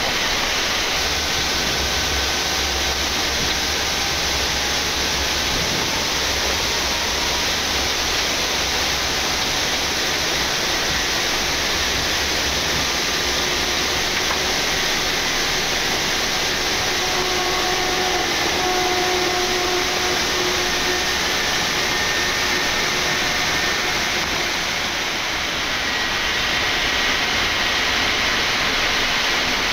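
Steady flight-deck noise of a Boeing 787-9 on the ground after landing: a constant airy rush with faint engine whines drifting slowly in pitch, and a low rumble over the first several seconds.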